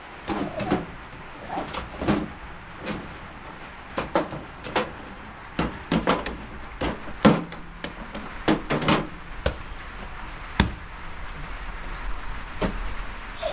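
Irregular knocks and clatter of hard objects being handled: many short, sharp strikes with no steady rhythm, the loudest about seven seconds in.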